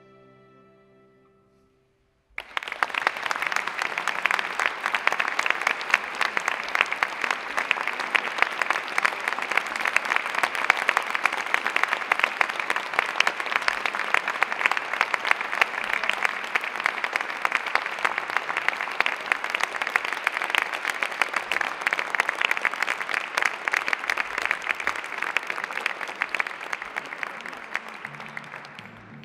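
A string orchestra's last chord fades away, and after about a second of silence the audience breaks into applause. The clapping stays steady for nearly half a minute and dies away at the very end.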